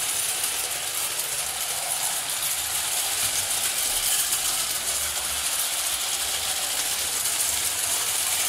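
Carette gauge 1 live-steam tinplate locomotive with oscillating cylinders running along the track: a steady hiss with a fast, even mechanical rattle from the running gear and wheels on the tinplate rails.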